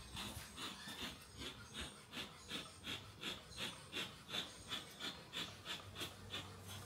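Bee smoker's bellows being pumped, a quiet, even train of short puffs of air, about two to three a second.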